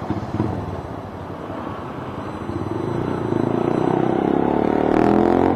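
Motorcycle fitted with an aftermarket Akrapovic exhaust pipe, accelerating under way: the exhaust note climbs steadily in pitch and grows louder from about two seconds in, easing off near the end.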